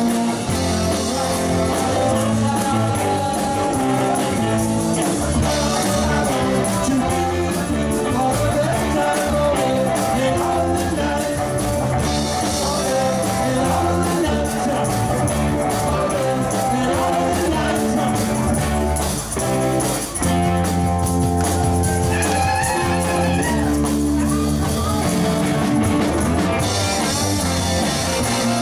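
A live band playing rock-and-roll with guitar and drums.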